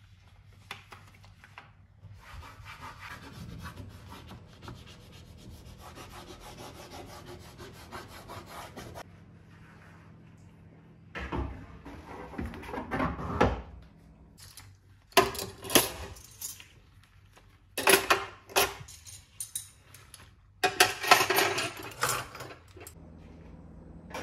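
A toothbrush wrapped in a cloth rag scrubbing a surface: a fast, steady rubbing for several seconds. Then a plastic cutlery tray is lifted out of a kitchen drawer and handled, in several loud bouts of clattering and knocking.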